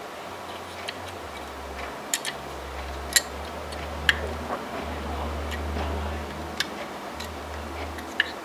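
Pliers bending the legs of a steel split pin around on a Morris Minor handbrake assembly: a handful of sharp, separate metal clicks over a low hum.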